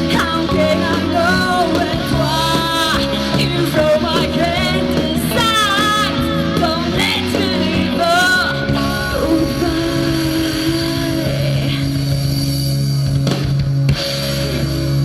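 Rock band playing with a singer over guitars, bass and drums. The singing stops about halfway through and the band holds long sustained chords, which cut off suddenly near the end.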